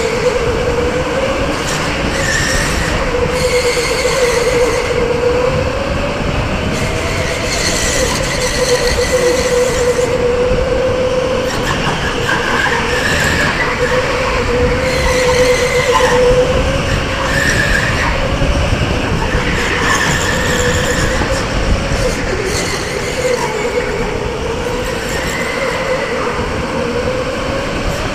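Electric go-kart motor whining at full race pace, its pitch rising and falling with speed through the corners, over a steady rushing noise.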